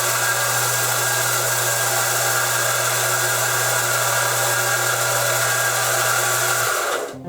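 Sears Craftsman 351.22632 combination belt and disc sander running steadily on a dry run with no workpiece, its newly fitted belt turning, with a steady hum under it; it is switched off and stops near the end.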